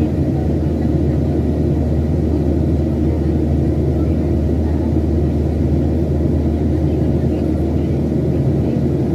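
Steady cabin drone of a Boeing 737-800 under power, with its CFM56-7B engines and the airflow making an even low rumble carrying a few steady low tones.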